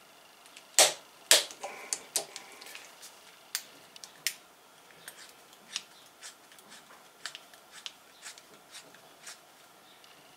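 Click-type torque wrench giving two sharp clicks about a second in as it reaches its set torque, followed by lighter, irregular ticks about every half second as the wrench is handled and its grip turned.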